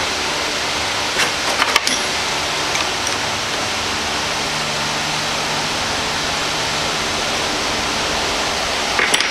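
Steady, even hiss of workshop background noise, with a few light metallic clicks and taps about a second and a half in and again near the end, as the tool holder on the lathe's tool post is handled and adjusted.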